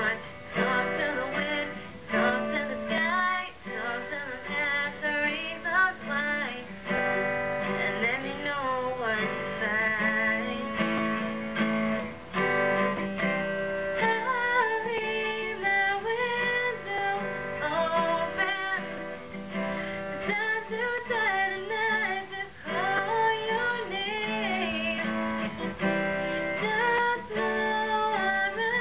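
A woman singing a slow pop-country ballad over strummed acoustic guitar chords.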